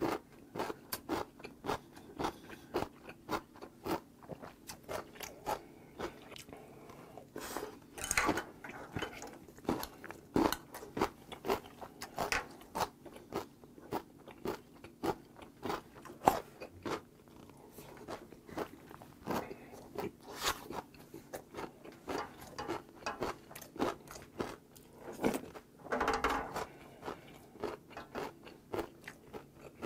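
A person chewing mouthfuls of ox-blood hangover soup (seonji haejangguk) and rice with mouth sounds picked up up close: a steady stream of short wet smacks and clicks, several a second, with a louder, longer burst near the end.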